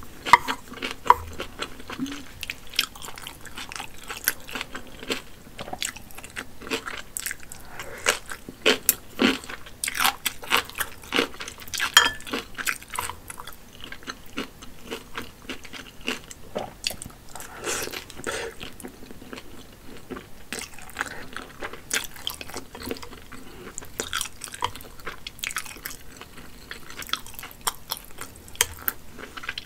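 Close-up eating sounds: a mouthful of wide Shanxi pulled noodles being chewed, with a dense run of irregular wet mouth clicks and smacks.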